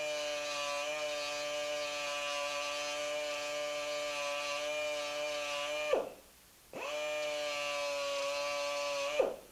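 Small tube sander running with a steady whine while a copper strip is held against its sanding sleeve. It winds down about six seconds in, starts up again a moment later, and winds down again near the end.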